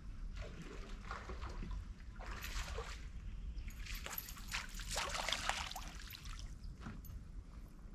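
A small hooked bass splashing at the water's surface as it is reeled in toward the boat, in several irregular bouts.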